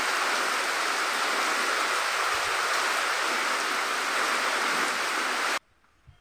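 Heavy rain falling on leaves and wet ground: a steady, dense hiss that cuts off abruptly about five and a half seconds in.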